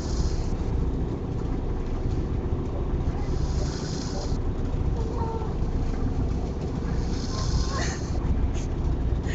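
A person snoring while riding in a vehicle: a breathy hiss swells about every three to four seconds over the vehicle's steady low engine drone.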